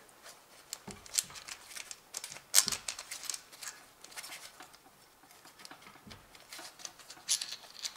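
Scattered light metallic clicks and taps as loosened camshaft bearing-cap bolts on a Toyota 2ZZ-GE cylinder head are handled and lifted out by hand, with a sharper tap about two and a half seconds in and another near the end.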